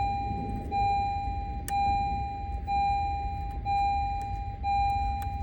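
A 2020 Honda Accord's warning chime beeping steadily about once a second, the same single tone each time, over a low steady rumble, with a couple of faint clicks.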